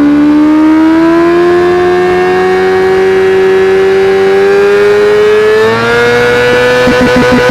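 Yamaha YZF R6's inline-four engine, through a LeoVince SBK exhaust, held at high revs with the rear tyre spinning in a burnout; the pitch creeps slowly upward, steps up a little near the end, then stutters rapidly against the rev limiter in the last second.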